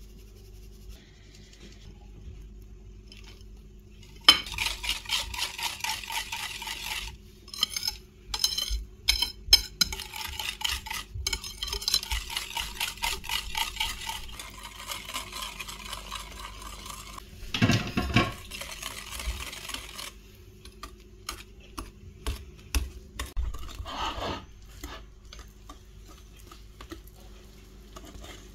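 Wire whisk beating a mixture in a ceramic bowl, a fast rhythmic clatter of wires against the bowl starting about four seconds in. After about 20 s it becomes softer as a thick cake batter is stirred.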